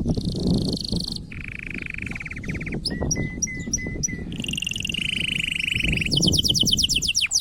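Male canary in breeding condition singing: a fast song of rolling trills and repeated chips, switching to a new trill every second or so and ending in a run of quick falling sweeps. A low rumbling noise runs underneath.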